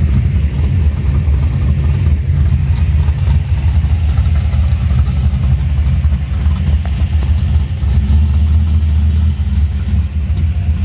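A 1970 Plymouth Duster Junior Street drag car's engine idling steadily at close range.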